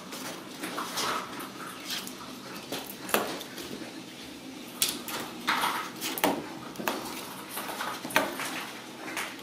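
Ragdoll kittens scrambling at a dangling toy: scattered taps, knocks and scratches of paws and claws against wooden doors and a hardwood floor, with a few sharper knocks about three, five, six and eight seconds in.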